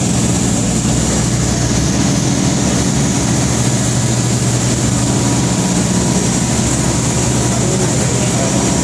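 Heavy diesel machinery running steadily: a loud, even low drone with a constant hiss above it.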